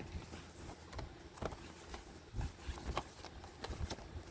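Light handling of a plastic DVD case: a few scattered soft taps and clicks over quiet rustling.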